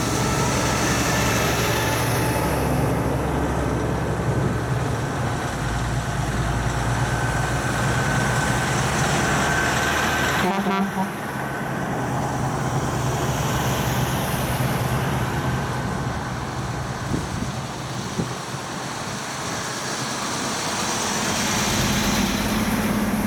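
Heavy diesel trucks driving past one after another in convoy, engine and tyre noise swelling and easing as each one goes by. There is a brief break in the sound about ten seconds in.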